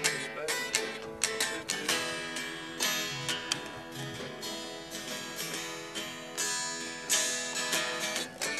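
Acoustic guitar played with a quick run of strummed chords and picked notes, each attack ringing on.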